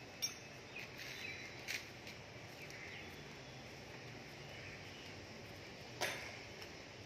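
Outdoor ambience with birds chirping faintly, broken by three sharp clicks or knocks.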